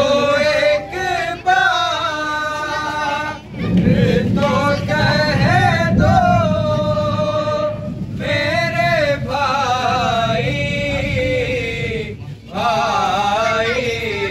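Men's voices chanting a nauha, an Urdu lament for Muharram, together in long held melodic lines, with brief breaks between lines about three and a half seconds in and again near the end.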